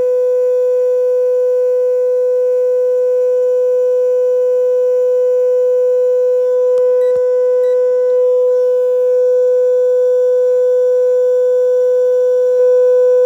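A steady mid-pitched test tone plays through a car's midrange speaker at full volume, driving the amplifier module while its limiter is set. A few faint clicks come about seven seconds in, and the tone gets slightly louder near the end.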